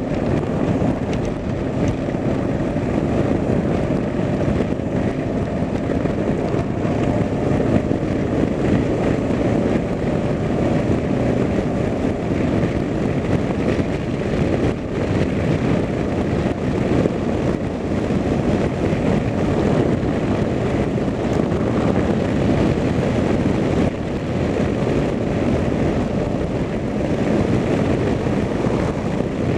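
Steady drone of a moving vehicle at cruising speed: engine and road noise mixed with wind on the microphone.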